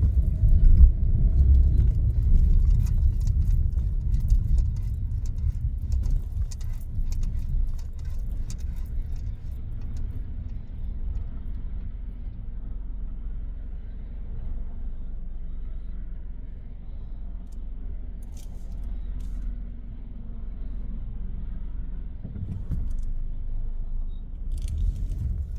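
Gusty dust-storm wind buffeting a car, a low fluctuating rumble that is strongest in the first few seconds and eases after about eight, with scattered sharp ticks through the first eight seconds or so and again near the end.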